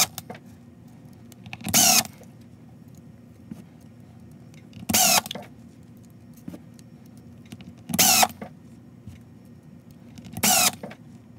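Cordless drill-driver driving screws into a plastic housing: five short whirring runs of the motor, each about half a second long, a couple of seconds apart.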